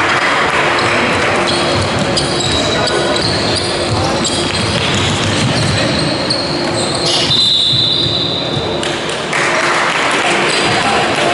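Basketball game sounds in a sports hall: the ball bouncing on the wooden floor, shoes squeaking and players' voices. A brief high squeak or tone stands out around seven and a half seconds in.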